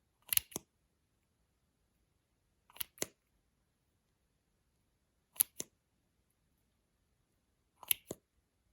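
Four sharp double clicks, about two and a half seconds apart, each a quick click-click.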